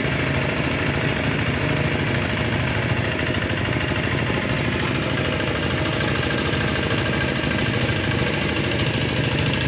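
Diesel engine of a two-wheel hand tractor used for harrowing a rice paddy, running steadily with an even, rapid beat.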